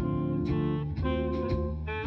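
Background music: jazzy instrumental with guitar and a steady beat.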